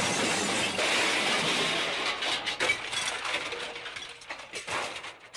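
Car crash: a crunching collision noise that thins after about two seconds into scattered clinks and rattles of falling debris, dying away near the end.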